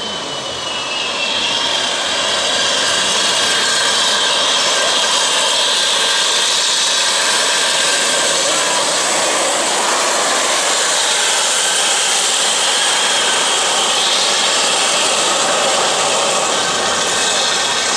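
Small hard wheels of homemade gravity carts rolling fast down an asphalt road: a loud, steady rushing noise that builds over the first two seconds and then holds.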